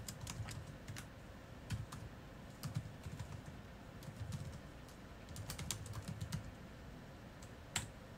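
Typing on a computer keyboard: scattered keystrokes in short runs with pauses between, and one louder click near the end.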